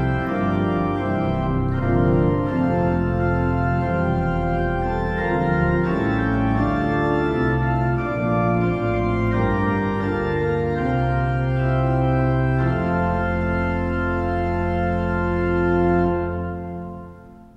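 Organ playing slow, sustained chords of a psalm refrain, ending on a long held chord that dies away at the end.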